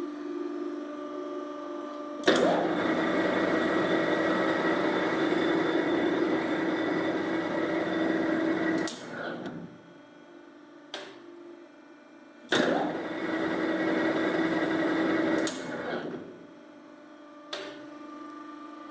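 SA 562 S100 lathe: a steady motor hum, twice broken by the spindle drive running loud with a gear whine, about six seconds and then about three seconds, each time dying away as it stops. A single sharp click follows each stop.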